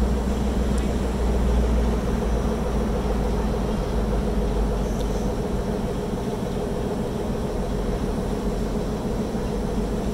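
Locomotive idling with a steady low hum.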